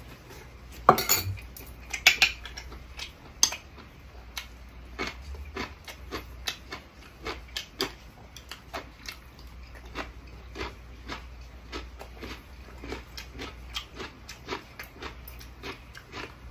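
Metal spoon and chopsticks clinking against a ceramic rice bowl and plates while eating. A few sharp clinks in the first few seconds, then a run of lighter, irregular clicks.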